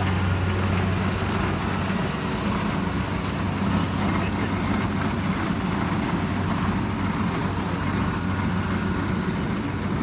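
Rice combine harvester's engine running steadily, a low even hum with no change in pitch.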